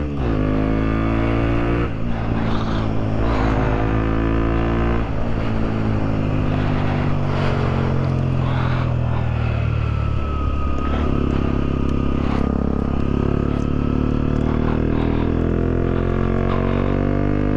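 Motorcycle engine accelerating and shifting up: its pitch climbs and drops back at each gear change, about two, three and five seconds in. The engine then eases off with falling pitch and climbs steadily again toward the end.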